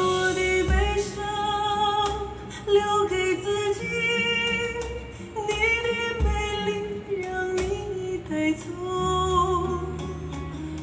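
A female vocalist sings a slow Mandarin ballad in long, held notes over sustained bass and soft instrumental accompaniment, with deep low hits about a second in and again near the middle.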